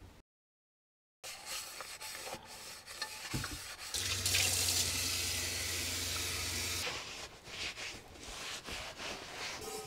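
Water running from a sink tap for about three seconds, with a low hum under it, then shut off; small clicks and knocks of handling come before and after.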